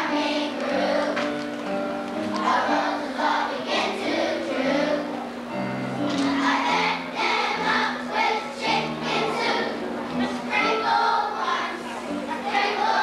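A first-grade children's choir singing together over an instrumental accompaniment.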